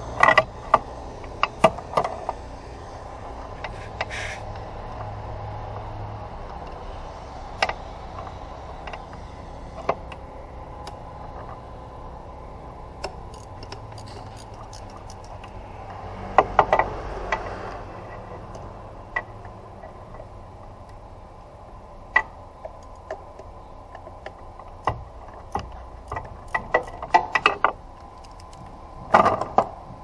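Hand ratchet and tools working bolts on the engine's intake: short bursts of quick metallic clicks and scattered knocks, over a steady low hum.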